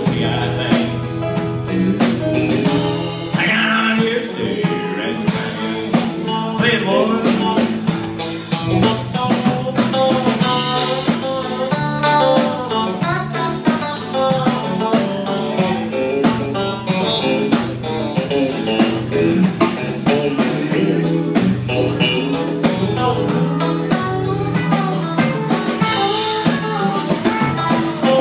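Live country band playing a song: acoustic and electric guitars, electric bass and a drum kit keeping a steady beat.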